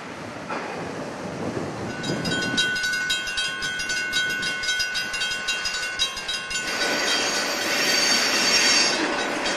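Wind noise on the microphone at first, then a slow freight train close by: cars rolling past with wheels clicking over rail joints and a steady high-pitched squeal of wheel flanges from about two seconds in. Near the end the sound turns louder and noisier as the Southern Pacific EMD GP9 diesel locomotive comes past.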